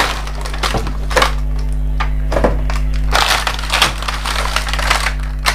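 Cardboard and plastic packaging of an action camera box being opened and handled: irregular crackling, rustling and clicks. A steady low electrical hum runs underneath.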